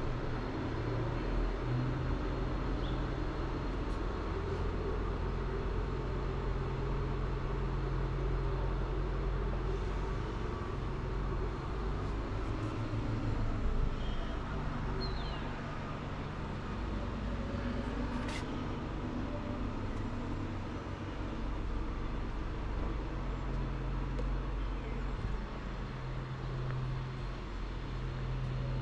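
Steady low rumble of outdoor street ambience, like distant traffic, with a single sharp click a little past the middle.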